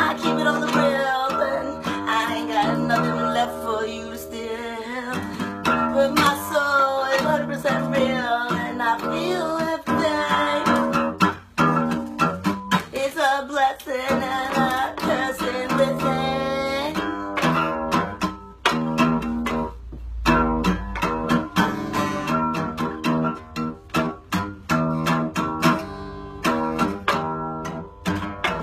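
Acoustic guitar strummed in a steady rhythm while a woman sings along; her singing stops a little past halfway and the strumming carries on alone.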